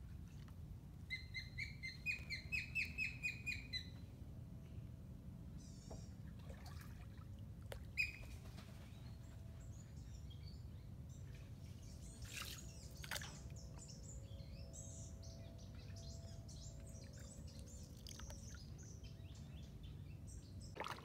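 Birds calling: a quick run of repeated, slightly rising notes about a second in, then scattered high chirps and twitters through the second half, over a faint low rumble.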